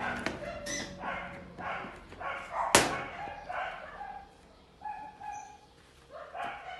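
A dog barking repeatedly, about twice a second, with a sharp click just before the middle and a short whine near the end.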